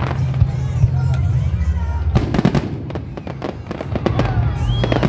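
Fireworks display: a dense run of bangs and crackles from aerial shells bursting in quick succession.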